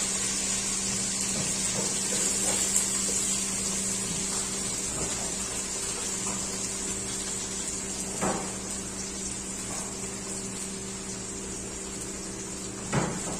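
Chopped garlic sizzling in hot mustard oil in a frying pan, the hiss slowly dying down, with two short knocks, one about eight seconds in and one near the end.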